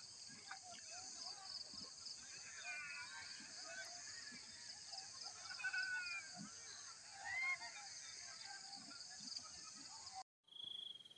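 Outdoor field ambience: insects buzzing in a steady high drone, with birds chirping over it. About ten seconds in it cuts off abruptly, and a cricket's high, steady trill begins.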